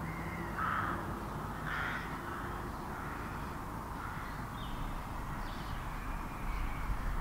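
Outdoor ambience with a crow cawing twice, about one and two seconds in, then fainter bird calls and a low rumble near the end.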